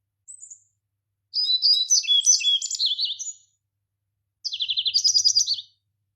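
A crested songbird singing: a short high chirp, then a varied phrase of quick warbled notes lasting about two seconds, and after a pause a fast trill of repeated notes.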